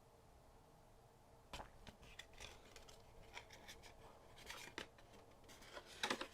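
Faint rustling and scattered light clicks of packaging being handled while a keyboard is unboxed, starting about a second and a half in, with a louder cluster of clicks near the end.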